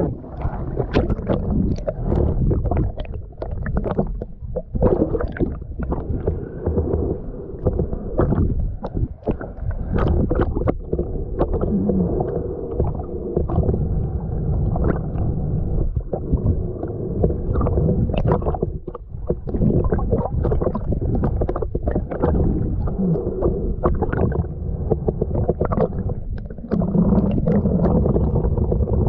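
Muffled water sounds heard through a submerged or half-submerged action camera: continuous low rumbling and gurgling, with many irregular clicks and knocks, dull and cut off above the low-mid range.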